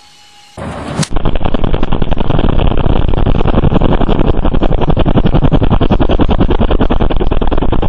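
Helicopter rotors beating close to the microphone: a very loud, fast, even chopping, distorted and cut off sharply in the treble, that starts abruptly about a second in.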